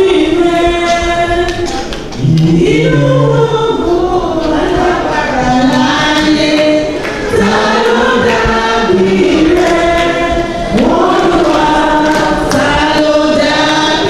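Church choir singing a song in phrases of held notes, a few seconds each.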